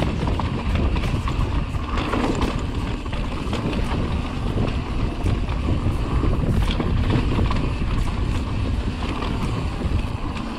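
Mountain bike rolling down a dirt trail, heard from a handlebar-mounted camera: wind buffeting the microphone over a steady rumble of tyres on dirt and rock, with frequent small clicks and rattles from the bike jolting over bumps.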